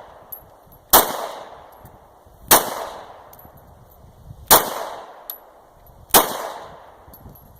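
Four single gunshots from a pistol, fired slowly and evenly about one and a half to two seconds apart. Each shot is followed by a short decaying ring.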